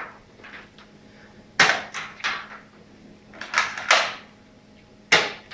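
Toy cap gun firing six sharp pops at uneven intervals, some in quick pairs.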